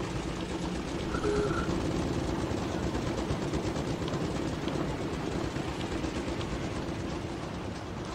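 Steady rumbling, rattling noise like a train or streetcar running, with fine crackle throughout.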